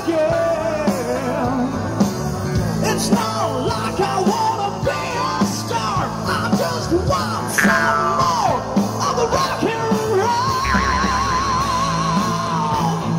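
Rock song playing, a singer's voice over a full band, ending on a long wavering held note.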